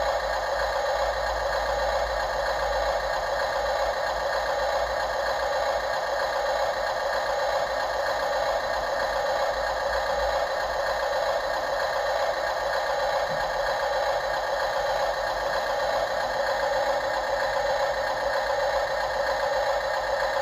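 Radio-controlled model construction machinery running, with a steady whirring and rattling of small motors and gears.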